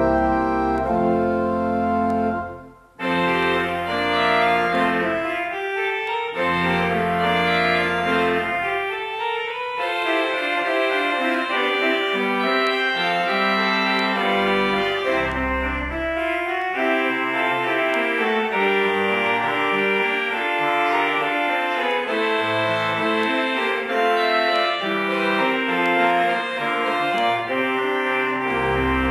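Pipe organ playing sustained chords, with a short break about three seconds in before the playing resumes.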